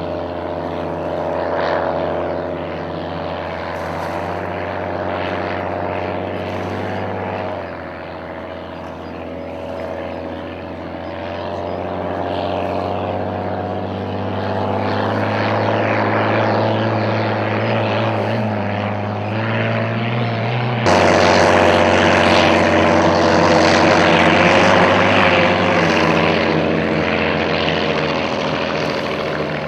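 Vintage racing hydroplane's engine running hard at speed, a loud steady drone whose pitch rises and falls slightly. About two-thirds of the way through it abruptly gets louder and harsher.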